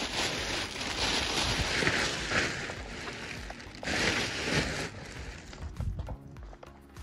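Clear plastic packaging sheet rustling and crinkling, in two loud stretches: one at the start lasting about three seconds, and a shorter one about four seconds in.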